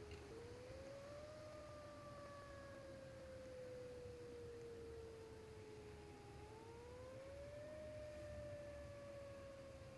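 Faint, distant outdoor warning siren sounding a wail. Its pitch rises for about a second, falls slowly for about five, then rises and falls again near the end, consistent with a Federal Signal 2001 mechanical siren.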